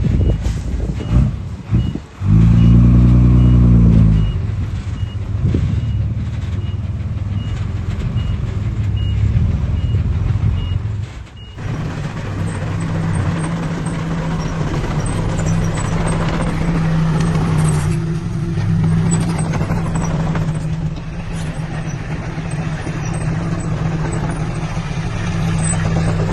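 Heavy diesel dump truck engine running with its reversing beeper sounding about twice a second. A loud low blast of about two seconds comes a couple of seconds in. The beeping stops about eleven seconds in, and a steady diesel engine drone follows.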